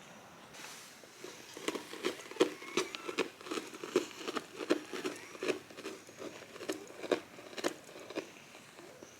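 A cat chewing grass: a steady run of crunchy bites, about two or three a second, starting about a second in and stopping shortly before the end.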